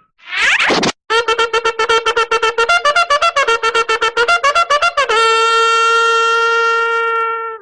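A springy boing sound effect. Then a brassy horn plays a fast string of short notes, about ten a second, in a small wavering tune. About five seconds in it ends on one long held note that cuts off.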